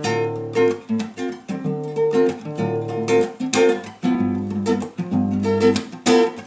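Acoustic guitar strumming rhythmic chords, with low bass notes under them: the instrumental intro of a song.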